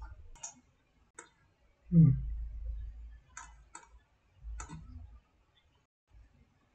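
Computer mouse clicks, about five, irregularly spaced, with one short low thump about two seconds in.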